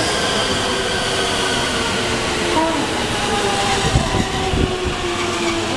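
JR West 223 series 1000 Special Rapid electric train pulling in and slowing. Its motor whine falls steadily in pitch over the running noise, with a few heavy wheel thumps about four seconds in.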